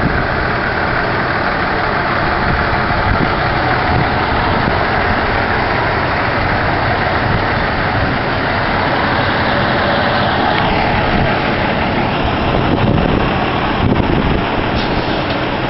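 Diesel semi-trucks running as they pull away and roll slowly past, a steady engine drone that swells a little as a tractor-trailer goes by near the end.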